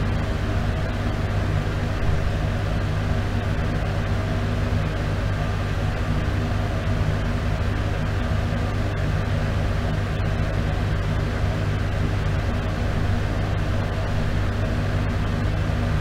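Bathroom exhaust fan running steadily: a constant low hum over the even rush of moving air.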